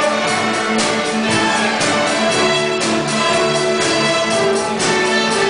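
A children's school string orchestra of violins and cellos playing a pop-song arrangement, with a drum keeping a steady beat of about two strokes a second under the held string notes.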